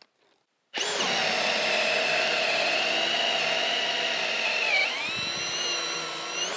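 Hilti SF 6H-A22 cordless drill running at high speed, boring a 1-1/4-inch spade bit through a wooden beam: a steady high-pitched motor whine that starts about a second in. Near the end the pitch dips briefly and recovers, then the whine cuts off suddenly as the trigger is released.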